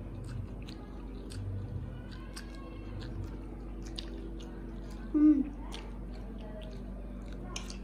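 Two people eating instant noodles: wet slurping, chewing and lip smacks with many short clicks. About five seconds in comes a brief, loud voiced sound, like a short hum.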